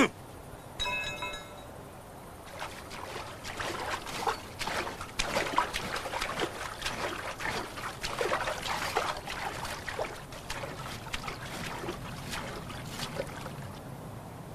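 Irregular splashing of someone wading through shallow water, building a few seconds in and thinning out near the end. A short held tone sounds about a second in.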